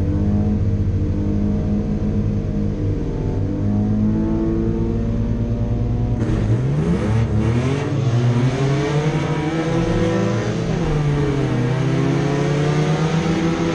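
Car engines running steadily, then about six seconds in revving up and accelerating, their pitch rising and falling as they pull away.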